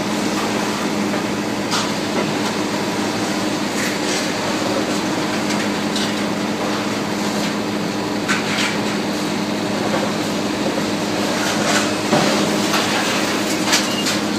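Demolition excavators' diesel engines running with a steady hum, with scattered sharp cracks and clatter as concrete and metal are broken off the building by the excavator's crushing attachment.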